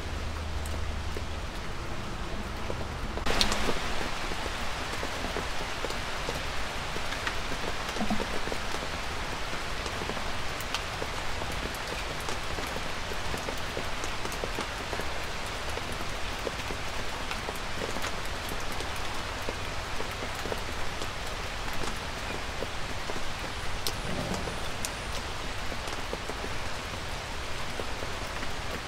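Light rain falling steadily in woodland: an even soft patter with scattered single drips, and a brief louder burst of noise about three seconds in.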